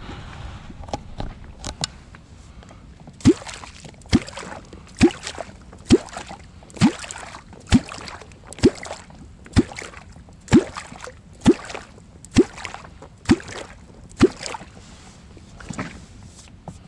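A kvok, the wooden catfish-calling club, struck on the water in a steady series of about thirteen strokes, just under one a second, each a low bloop rising in pitch. The strokes are meant to call catfish up toward the bait.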